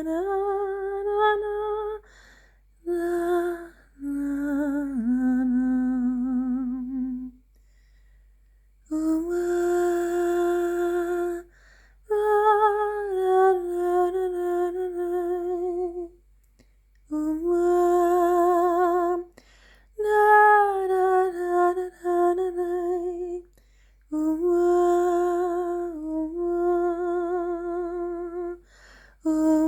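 A voice humming a slow improvised melody, holding long notes with a wavering vibrato. The notes come in phrases of a few seconds, each followed by a short pause.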